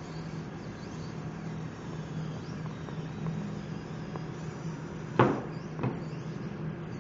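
VEX classroom robot's motors running with a steady low hum, then a sharp clunk about five seconds in and a smaller one just after, as the robot's arm releases its canister onto the table.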